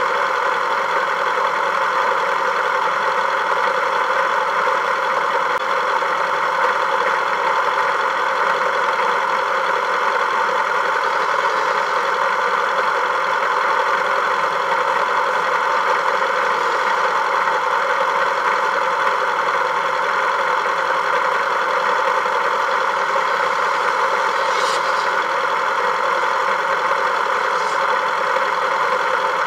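Vehicle engine running at a steady speed: an even, unchanging drone, with two faint short ticks near the end.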